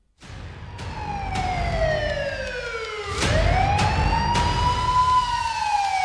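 Police siren wailing in slow, long sweeps: the pitch falls for about three seconds, then rises again and slowly falls, over a low rumble.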